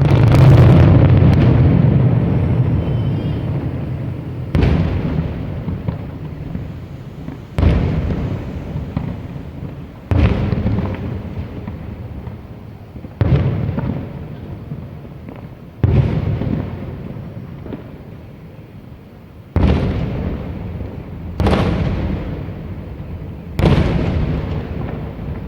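Large aerial firework shells bursting one after another, about nine deep booms, each trailing off in a long rolling rumble; the first, right at the start, is the loudest.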